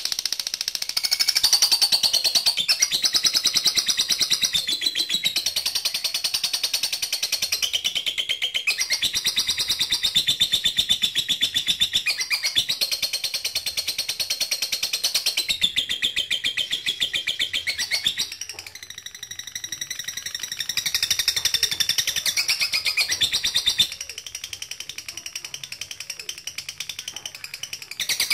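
Lovebird ngekek: a long, unbroken rapid chattering song of many sharp high notes a second, shifting up and down in pitch in short stretches. It drops quieter for a moment about two-thirds through and again near the end.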